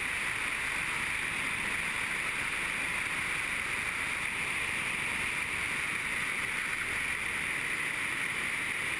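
Steady rush of airflow and wind over the camera on a de Havilland Tiger Moth biplane descending on its landing approach, with the engine sound blended into it and no change in level.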